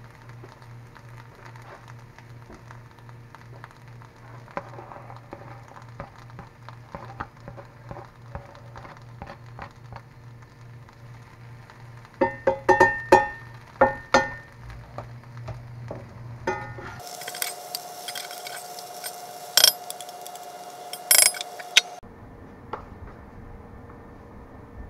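A metal knife clinking and scraping against a cast iron skillet as chopped pepper is pushed off a cutting board into the pan. A cluster of sharp ringing clinks comes about twelve seconds in, and more clinks come a few seconds later, all over a low steady hum.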